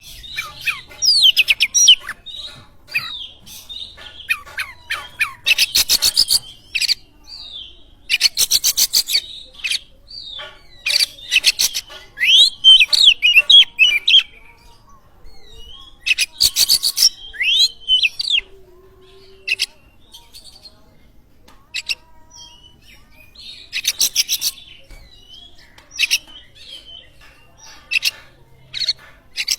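Oriental magpie-robin (kacer) singing loudly, with quick sweeping whistled notes broken by several fast buzzy rattling bursts, used as a lure song to set other caged birds singing.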